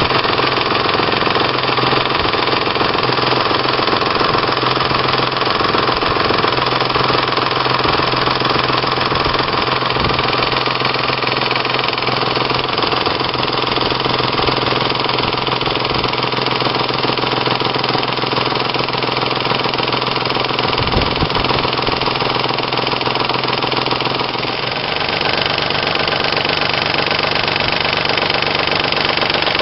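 1996 Ford Probe GT 2.5 L 24-valve V6 running with a loud, rapid slapping tick. The owner suspects a slack timing belt whose low tension lets a pulley vibrate and slap against the belt.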